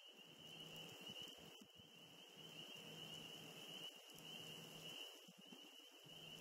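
Near silence: faint outdoor ambience with irregular low wind noise on the microphone and a steady, thin high-pitched tone.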